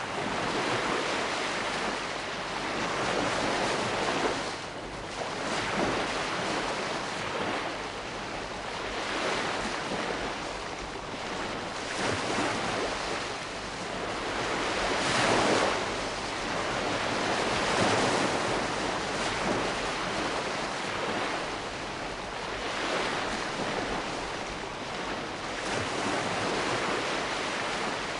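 Calm sea: small waves washing in and receding in slow, irregular swells every few seconds, with a steady hiss of surf.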